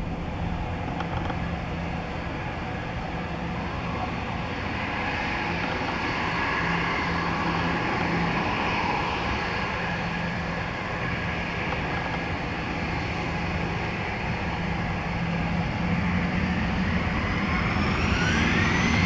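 Cessna Citation X business jet's twin Rolls-Royce AE3007 turbofans running at low power as the jet turns and lines up on the runway, a steady rushing hum. Near the end a rising whine begins as the engines start to spool up for the takeoff.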